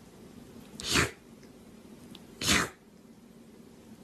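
A kitten sneezing twice, two short sharp sneezes about a second and a half apart.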